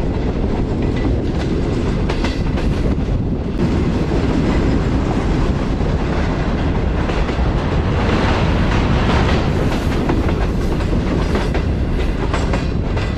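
Passenger train in motion: a steady, loud rumble of wheels on the track with a clickety-clack of the rails.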